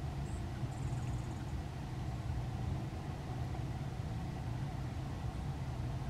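Steady low mechanical rumble, like a running engine or motor, with faint high thin bird notes in the first second and a half.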